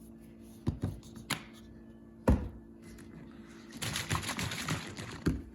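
Plate and utensils handled at a table: a few sharp knocks and clicks, the loudest about two seconds in, then about a second of rustling with quick ticks, and one more knock near the end.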